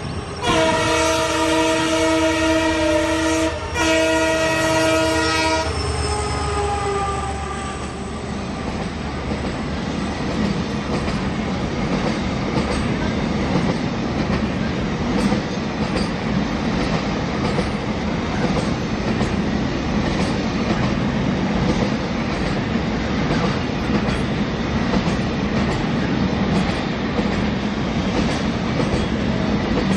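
Diesel freight locomotive sounding its multi-tone horn in two long blasts, the second starting about three and a half seconds in. The horn pitch slides down as the locomotive passes. Then a long rake of covered car-carrier wagons rolls by with a steady rumble and the clickety-clack of wheels over rail joints.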